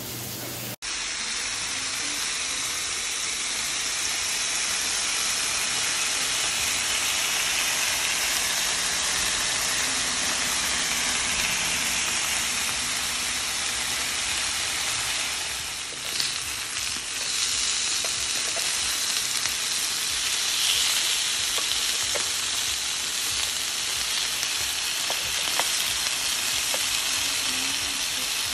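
Beef short ribs sizzling on a hot ridged nonstick grill plate: a steady frying hiss with a few faint pops and crackles.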